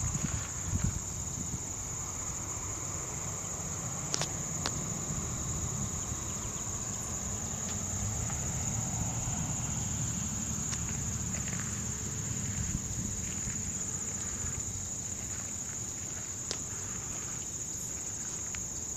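Steady high-pitched chorus of field insects, such as crickets, trilling without a break, over a low rumble and a few faint clicks.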